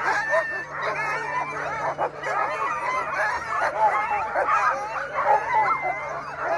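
A large crowd of sled dogs barking and yelping at once, a dense, continuous overlapping din. The dogs are excited as the teams are hooked up to their lines before the race start.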